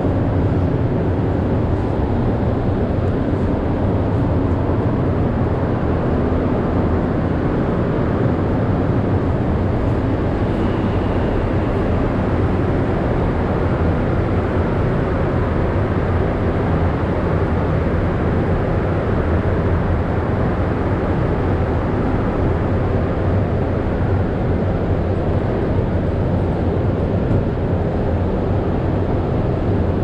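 Steady low rumble of a moving vehicle, unbroken and even in level.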